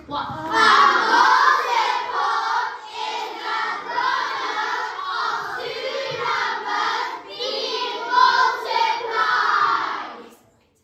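A class of children chanting a memorised definition of a multiple loudly in unison for about ten seconds, stopping abruptly near the end.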